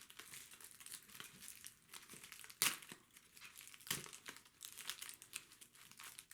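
Grand Ferrero Rocher packaging crinkling and crackling as it is handled and unwrapped, with two louder cracks in the middle.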